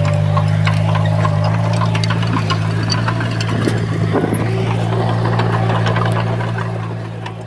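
Heavy construction machine's diesel engine running at a steady speed, with scattered light clanks and rattles over it.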